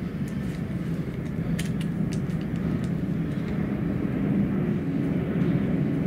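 Boeing 737-400's twin CFM56-3C1 jet engines at taxi power, a steady low rumble that grows slowly louder as the jet taxis closer.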